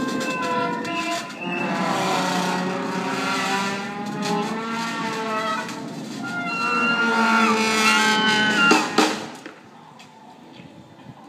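Brass marching band playing with drums: held, sliding horn notes over steady drum beats. The tune ends on a loud final accent about nine seconds in.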